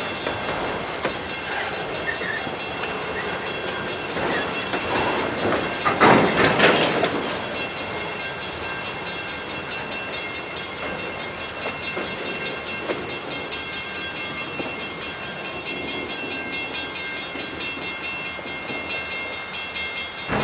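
Freight train's autorack cars rolling slowly past, steel wheels running on the rails with steady high-pitched tones over the rolling noise. A louder burst of wheel and rail noise comes about six seconds in.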